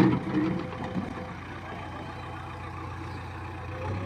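Heavy machine engine idling steadily at a low, even hum after a brief loud moment right at the start.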